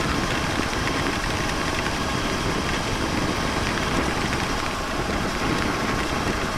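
Steady wind rush and road noise of a Suzuki V-Strom 650XT being ridden in rain, with its V-twin engine running underneath at an even speed.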